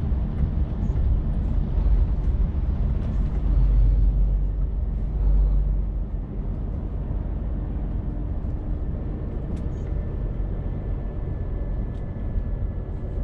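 Scania truck's diesel engine and road noise heard from inside the cab while driving at a steady pace, a low steady rumble that is a little louder in the first five seconds.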